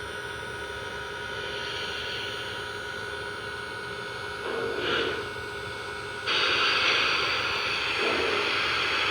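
Steam hissing from a Lionel Legacy Pennsylvania S1 duplex model locomotive's sound system as it starts up, a steady hiss that swells briefly and then jumps louder about six seconds in.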